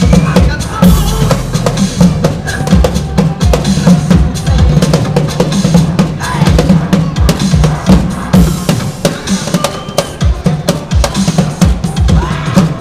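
Street drummer playing a full drum kit at a fast, busy beat, with rapid snare, rim and bass drum hits.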